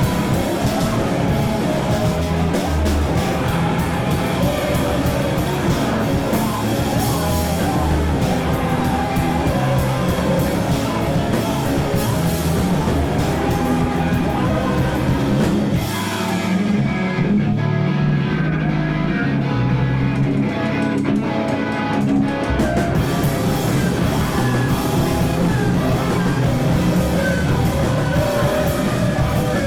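Rock band playing live: electric guitar, bass and drums with singing. About halfway through, the cymbals drop out for several seconds, leaving guitar and bass, then the full band comes back in.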